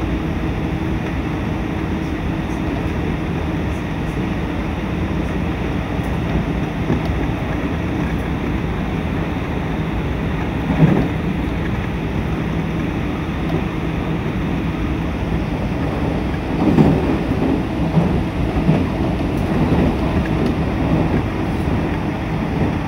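Steady running noise of a train heard from inside the carriage: rumble and rail noise under a constant low hum, with a few brief louder sounds about halfway through and again near the end.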